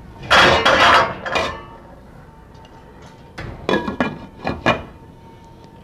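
Metal lid set onto a boiling pot: a loud clatter that rings briefly, then a few lighter metallic clinks about three and a half seconds in.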